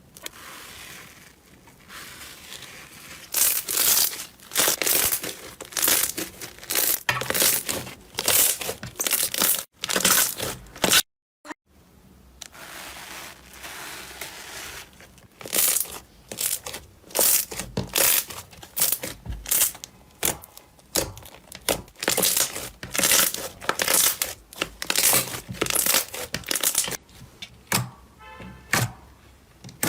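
Slime being squeezed and worked by hand, giving repeated crackling and popping sounds in clusters about once or twice a second. There is a brief cut to silence about eleven seconds in.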